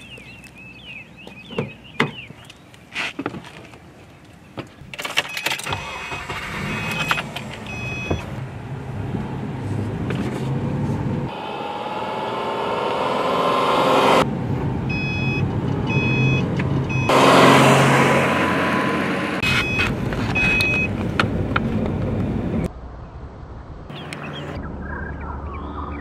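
Subaru Impreza hatchback: a few door clicks and knocks, then its flat-four engine running and accelerating, with the pitch rising through the gears, and a loud swell as it passes. A car's warning chime beeps in short repeated runs, typical of the seatbelt reminder.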